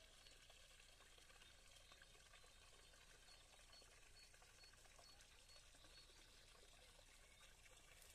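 Near silence: a faint, steady trickle of water in a garden pond.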